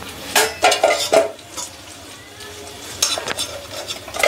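Metal spatula scraping and clinking against a wok while stirring and scooping golden-fried jackfruit pieces in hot oil, in two bursts, about half a second in and again around three seconds in, over a faint sizzle.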